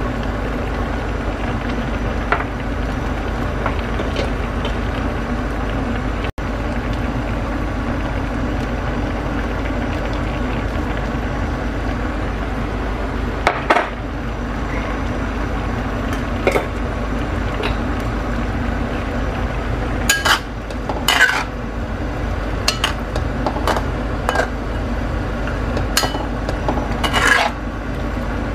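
A metal utensil scraping and clinking against a stainless steel pan while chicken in tomato sauce is stirred. There are a few isolated knocks, then frequent clinks and scrapes through the second half, over a steady low background hum.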